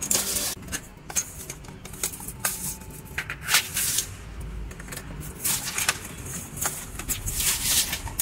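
Broom sweeping a dirty tiled floor: a string of short, irregular bristle swishes with small clicks and clatters of debris and objects knocked along the tiles.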